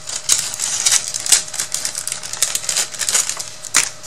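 Crinkling of a clear plastic packaging bag and quick irregular clicks as a tiny craft piece is handled over it.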